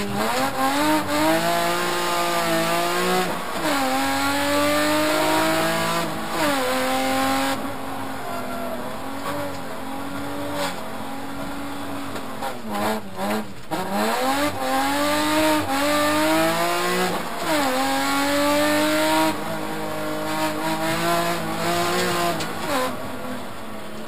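BMW M3 rally car's straight-six engine heard from inside the cabin, driven hard: the revs climb and drop sharply at each gear change several times, ease off with a few quick blips about halfway through, then climb through the gears again.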